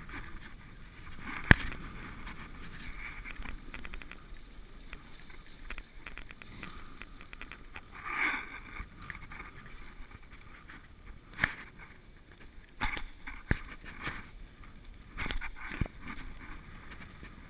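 Dog sled running along a packed snow trail: a steady hiss of the runners on the snow, broken by sharp knocks and clatter from the sled as it jolts, the loudest about a second and a half in and several more late on.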